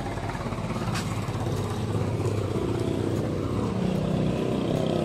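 Street traffic: a vehicle engine runs steadily and grows louder toward the end as it comes closer.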